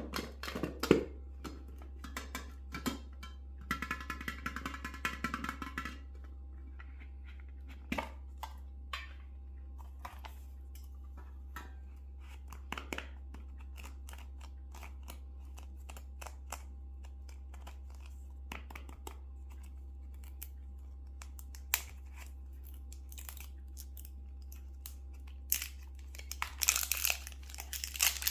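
Candy and packaging being handled: sparse sharp clicks and taps with quiet stretches between them, and a short rattling stretch with some ringing a few seconds in. Near the end comes a dense burst of crinkling wrapper. A low steady hum sits underneath.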